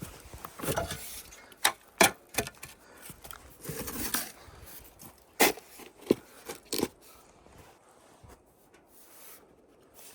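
Irregular knocks with scraping and rubbing in between, the sharpest knocks about two and five and a half seconds in, dying down over the last few seconds.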